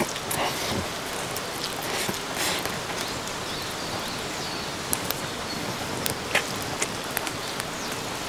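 Steady hiss of rain with sharp crackles from a wood fire in a fire basket; noodles are slurped and chewed near the start.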